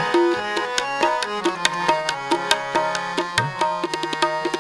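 Tabla and harmonium playing an instrumental interlude in Sikh shabad kirtan: held harmonium notes shift pitch now and then over a quick, dense run of tabla strokes.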